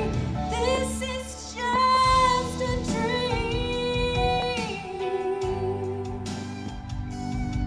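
A woman sings a country pop ballad into a microphone, holding long notes over instrumental accompaniment.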